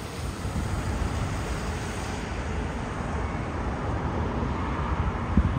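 Steady engine rumble of a jet airliner approaching to land, with wind gusts hitting the microphone near the end.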